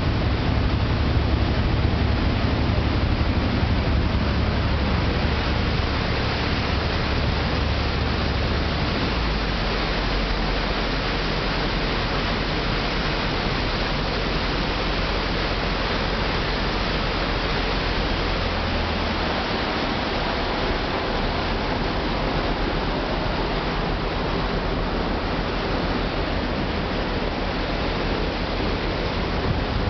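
Underwater hydrophone recording: a steady rushing hiss over a low rumble, the rumble dropping in level about nine seconds in.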